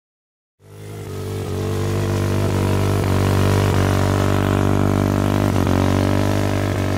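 Small motorcycle engine running, held at steady revs, fading in about half a second in.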